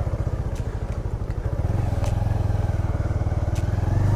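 Motorcycle engine running with an even pulse as the bike is ridden along a rough dirt track. The engine gets louder about halfway through as the throttle opens.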